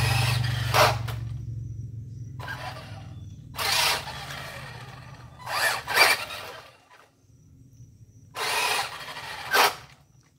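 Electric RC car (Tamiya Blitzer Beetle) whirring in short bursts of throttle, about every one to two seconds, tyres scrabbling on concrete. A low steady hum underneath fades out about seven seconds in.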